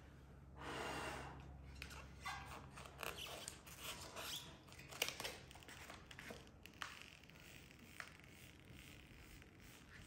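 A breath blown across a sticker sheet to clear dust, about a second long near the start, followed by soft rustling and crinkling of paper and lamination film being handled on a manual cold laminator, with a few light clicks.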